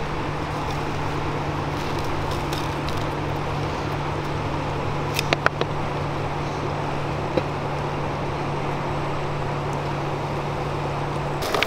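A steady low hum over constant outdoor background noise, with a few sharp plastic clicks about five and a half seconds in as a cooking-oil bottle's cap is opened before pouring; the hum cuts off near the end.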